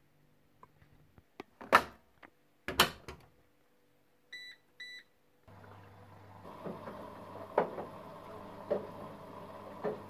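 Front-loading washing machine: the detergent drawer is knocked shut twice, two short button beeps follow, and about halfway through the machine starts its cycle with a steady low hum and hiss and a soft knock about once a second as the drum turns.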